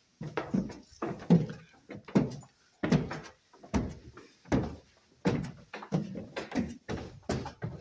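Footsteps thumping on old wooden stairs as a small child climbs step by step, an irregular run of two or three knocks a second.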